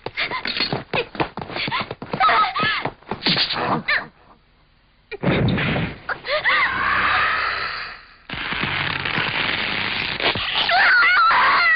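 Animated fight-scene sound effects: a quick run of sharp hits and clashes, then a pause of about a second. After it comes a heavy impact with rising and falling cries above it, then a long noisy rush.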